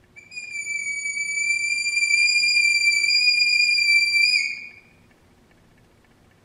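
Saxophone sounding one very high held note that swells in loudness over the first two seconds, then bends down in pitch and stops about four and a half seconds in.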